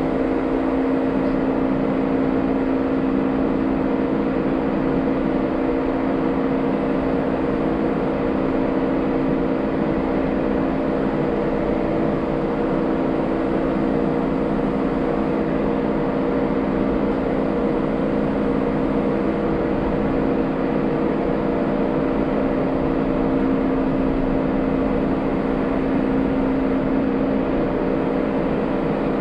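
Jeep Wrangler JL running at a steady engine speed: a constant drone with an unchanging hum.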